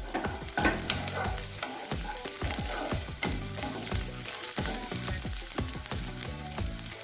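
Chopped onions and garlic sizzling and crackling in hot ghee in a kadai, stirred with a spatula.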